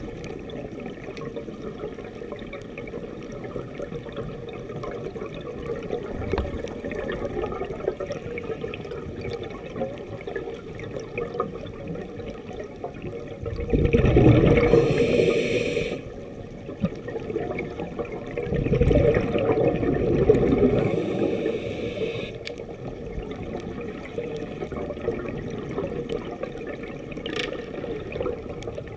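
Scuba diver breathing through a regulator underwater: a hissing breath in about halfway through, then a longer gush of exhaled bubbles. A steady low underwater background with faint scattered clicks runs between the breaths.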